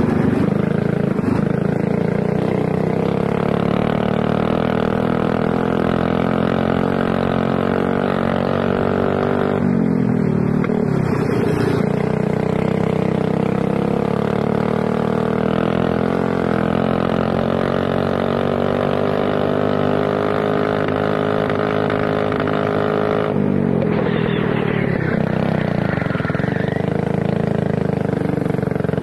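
Racing kart's prototype ZR28R engine running at full throttle, its pitch climbing steadily down the straights. Twice, about a third of the way in and again near the end, the pitch drops sharply as the throttle is lifted for a corner, then it climbs again.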